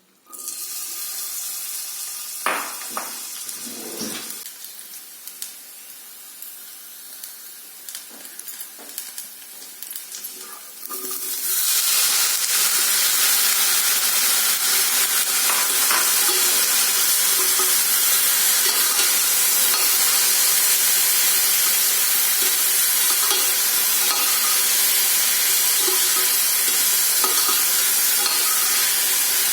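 Besan kulcha frying in oil on a hot pan, sizzling steadily, with a few utensil knocks in the first seconds. The sizzle grows much louder about eleven seconds in and stays loud.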